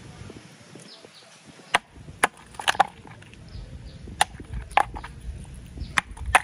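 A block of ice being knocked against wet concrete to break it open, giving a series of about eight sharp knocks and cracks from about two seconds in.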